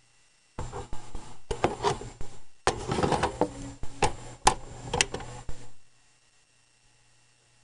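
A hard drive sliding into a bay of a Drobo storage array: plastic and metal rubbing and scraping, then three sharp clicks about four to five seconds in as the drive seats and latches. After that only a faint steady hum.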